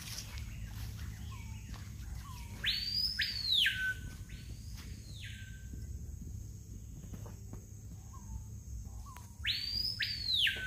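A bird giving loud whistled calls: each a short low note followed by a high note that drops away sharply, heard about three seconds in, again soon after, and once more near the end.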